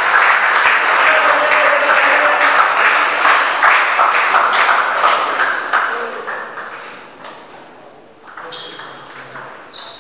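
Audience clapping that dies away over the first six seconds or so, followed near the end by a table tennis rally: a few sharp, ringing clicks of the ball off the bats and table.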